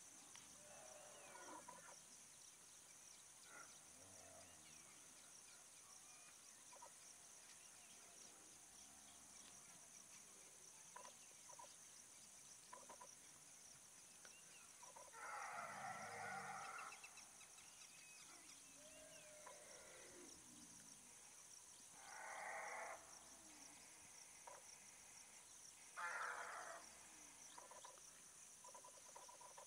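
Quiet evening bush ambience: a steady high insect hum, with three short calls from distant animals, the longest about halfway through and two shorter ones near the end.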